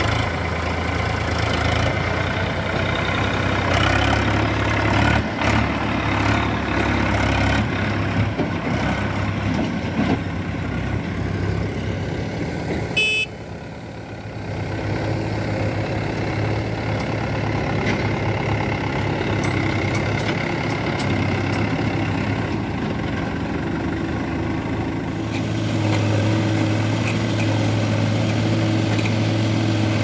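Diesel tractor engines running steadily as loaded tractor-trolleys drive. The sound drops and changes at a cut about halfway through, with a brief high-pitched squeal just before it. From a few seconds before the end a louder, lower engine hum takes over as a backhoe loader's engine runs while loading a trolley.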